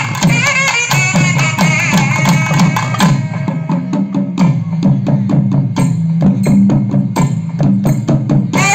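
A naiyandi melam folk band playing. A reed wind instrument carries a bending melody over drum strokes for about the first three seconds, then drops out. The barrel drums, played with sticks, keep a brisk steady rhythm on their own until the wind melody comes back at the very end.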